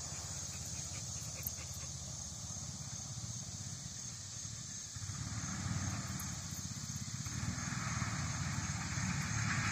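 Small go-kart engine running at a distance, growing louder from about halfway through as the mini semi-truck go-kart approaches.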